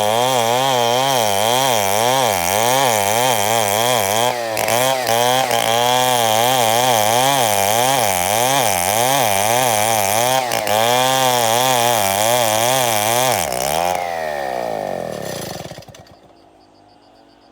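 Chainsaw running and cutting wood, its engine pitch rising and falling over and over as it works. About fourteen seconds in, the engine winds down and goes quiet.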